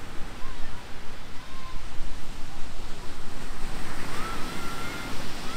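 Ocean surf breaking and washing on a sandy beach, with wind gusting on the microphone. A few faint high calls sound in the distance in the second half.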